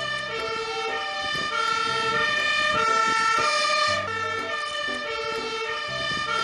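Siren of a MAN aerial-ladder fire engine sounding on an emergency run, stepping between tones in a repeating pattern.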